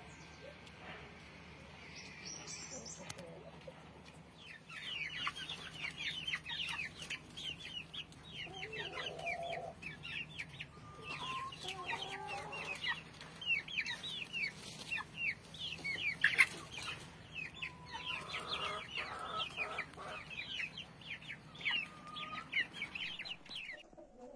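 Fancy chickens calling: rapid high chirps or peeps, several a second, with lower clucks now and then, starting about five seconds in.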